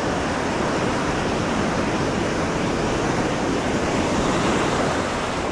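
Ocean surf breaking and washing onto the beach, a steady rushing wash with no single wave standing out.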